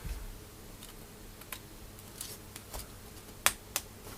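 Cherry MX key switches being pushed into a keyboard's aluminium plate and PCB, snapping in with scattered sharp plastic clicks. The two loudest clicks come about three and a half seconds in, a quarter of a second apart.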